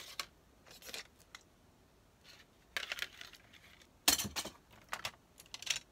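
Loose plastic Lego bricks clattering and clinking as a hand rummages through a heap of them, in several short bursts; the loudest comes about four seconds in.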